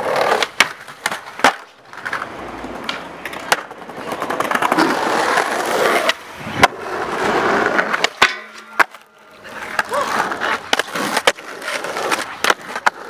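Skateboard wheels rolling over paving and tarmac, broken by many sharp clacks and knocks of the board popping, hitting ledges and curbs, and landing.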